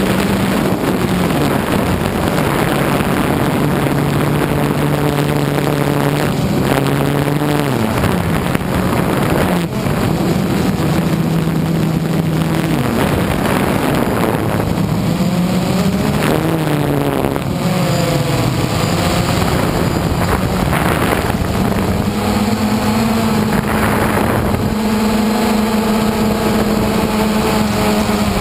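DJI Phantom 1 quadcopter's electric motors and propellers whirring, heard through the GoPro mounted on the drone. The pitch steps and glides up and down every few seconds as the motors change speed, over a steady hiss of rushing air.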